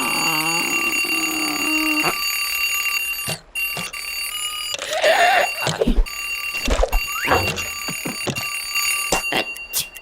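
Cartoon alarm clock ringing without a break, with several knocks and other cartoon sound effects over it; the ringing stops near the end.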